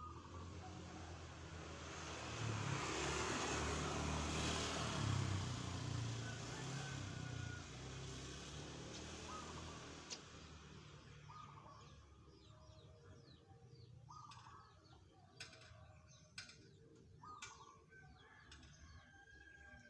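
A vehicle passing, loudest in the first half. Then a zebra dove (perkutut) cooing in short repeated notes every few seconds, with a few sharp clicks among them.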